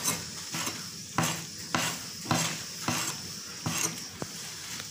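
Kitchen knife chopping on a plastic cutting board: a series of sharp knocks, about two a second.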